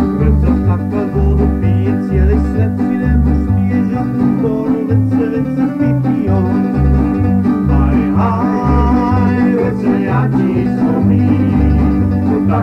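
Instrumental passage of Croatian folk music played by a plucked-string band, with a steady note-by-note bass line under a picked melody.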